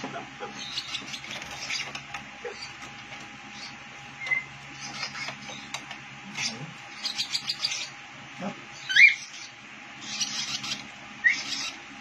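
Lovebird chirping in short high bursts, with a quick run of chirps about seven seconds in and a louder rising squeak about nine seconds in. A faint steady hum lies under it.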